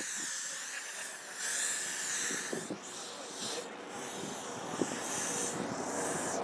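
Aerosol hairspray can spraying: a steady hiss in about four long bursts with brief breaks between them.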